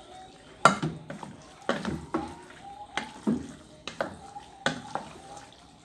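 Wooden spatula stirring cooked shell pasta and chicken in cream sauce in a metal pot, knocking against the pot about once a second.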